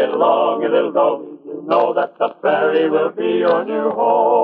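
A man singing in sustained, wavering notes broken into short phrases.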